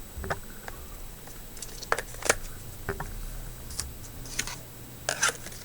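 Anker replacement battery being handled and seated in a Samsung Galaxy Note 4's battery compartment: several sharp, light plastic clicks and taps spread through.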